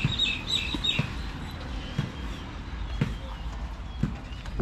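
A slow series of dull knocks about once a second, with small birds chirping rapidly in the first second.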